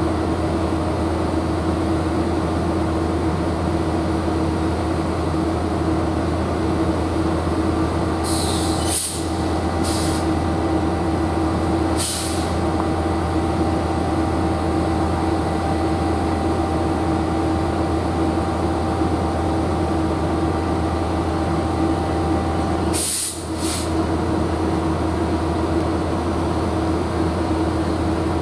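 Metrolink F125 diesel-electric locomotive idling at a standstill, a steady engine drone with a low hum. Short sharp hisses of air from the brake system break in several times: a cluster a third of the way in and a pair near the end.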